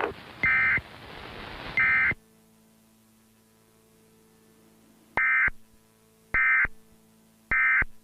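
Emergency Alert System end-of-message data bursts: five short, loud digital warbling tone bursts. The first two come over static hiss, and the last three are evenly spaced about a second apart over a faint hum.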